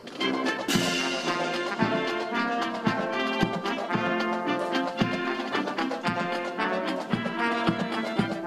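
Brass band playing a march, with a drum beat about twice a second; the music dips briefly right at the start, then carries on.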